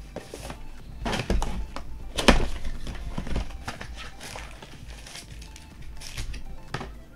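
Foil wrappers of Optic basketball card packs being torn open and crinkled, with cards handled, in several irregular sharp rustling bursts.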